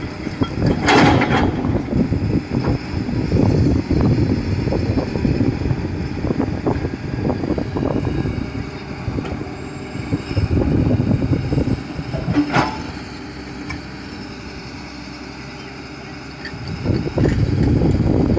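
Excavator engine running with an uneven rumble, and two sharp knocks, one about a second in and another past the middle.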